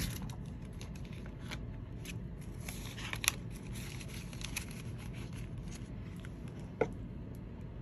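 Paper banknotes rustling and clear plastic binder pouches crinkling as cash is handled and a pouch page is turned, with scattered light clicks and two sharper clicks, about three and about seven seconds in.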